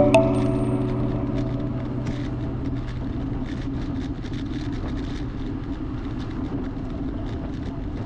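Steady rolling noise of a road bike ride picked up by a helmet- or bike-mounted action camera: tyre and wind rumble with faint scattered ticks. The last notes of music fade out in the first second.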